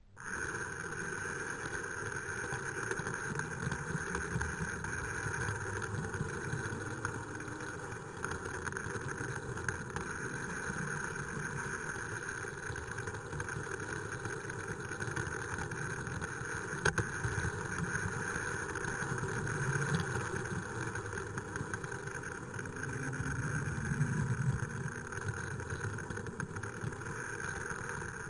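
Tri-ang 3MT model locomotive's small electric motor running steadily, with wheels rolling on the track and a few light clicks.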